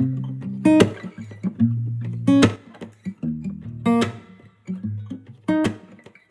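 Guitar music with no singing: sustained low bass notes under a sharp, bright chord stroke about every second and a half.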